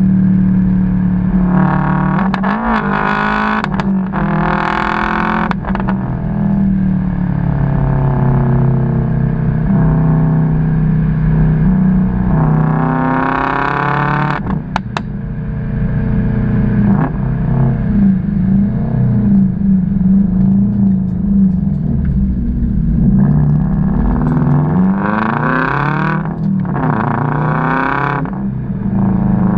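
Subaru STI's turbocharged flat-four engine running through an Agency Power aftermarket exhaust, its steady low note rising in pitch and falling back several times as it is revved.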